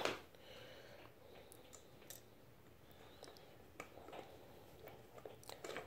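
Faint, scattered clicks and light scraping of a hand screwdriver turning a small screw through a metal drawer slide into a furniture panel.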